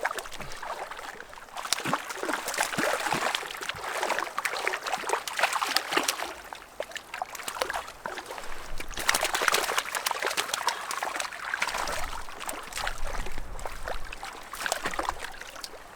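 Lake water splashing and trickling in irregular spurts, stirred as a hooked cutthroat trout is brought in at the water's edge.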